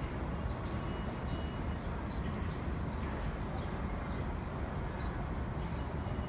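NYC subway train on the steel elevated structure, a steady low rumble mixed with city noise.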